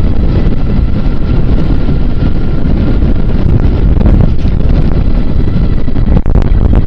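Wind buffeting the microphone of a moving bike rider: a loud, steady low rumble, with a faint steady whine above it. It drops briefly about six seconds in.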